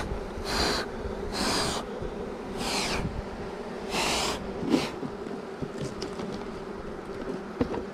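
Four short puffs of air blown over the hive's top bars, about a second apart, to drive the honeybees down off the frames, over the steady hum of the bees.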